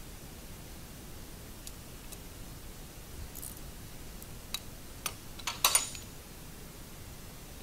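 Small metal parts of a hydraulic floor jack clicking and clinking as a foot and its bolt are worked loose by hand: a few light, scattered clicks, then a quick cluster of louder clinks about two-thirds of the way through.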